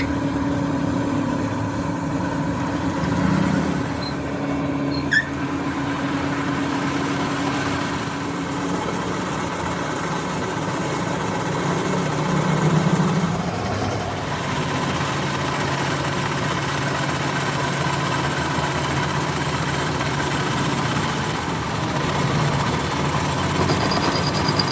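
Steady hum of a running machine motor or engine. Its pitch steps down to a lower steady tone about nine seconds in, and there is one sharp click about five seconds in.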